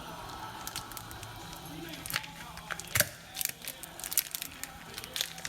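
Plastic packaging crinkling and tearing in sharp, irregular crackles, with one louder crack about three seconds in, as raw meat is unwrapped.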